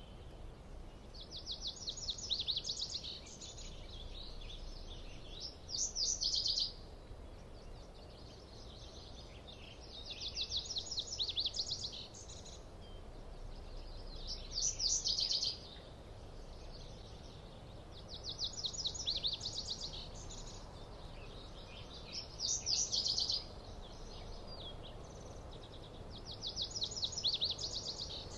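A songbird singing outdoors: a high, rapid trill of short notes lasting about two seconds, alternating with a shorter, brighter burst, one phrase every four seconds or so. A faint steady low rumble lies underneath.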